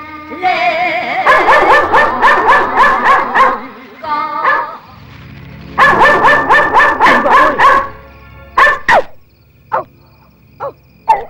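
Small dog yapping in two quick runs of high barks, about four or five a second, then a few single barks near the end, over background film music.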